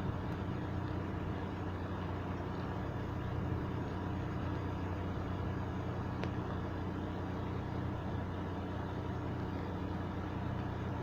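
Steady rain noise, even and unbroken, with a low steady hum underneath.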